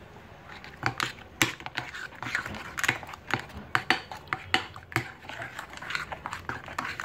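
A spoon stirring runny chocolate cookie dough in a mixing bowl, knocking and scraping against the bowl's side in quick, irregular strokes that start about a second in.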